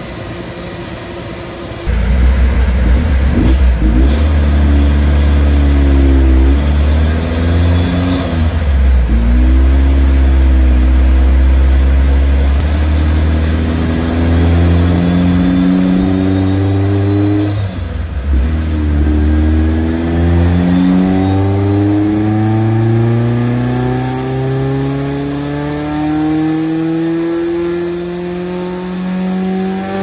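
Rotrex-supercharged 1995 Mazda Miata's 1.8-litre four-cylinder revving under load on a dyno. The engine comes in loud about two seconds in and wavers, dipping briefly twice. In the last ten seconds it climbs steadily in revs, with a thin high supercharger whine rising alongside.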